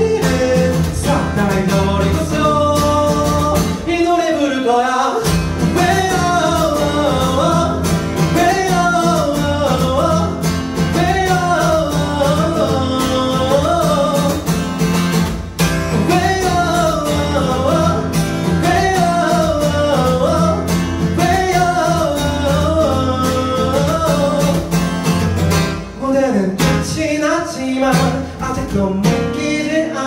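A man singing a melody in repeating phrases over his own strummed acoustic guitar. The guitar drops out briefly about four seconds in.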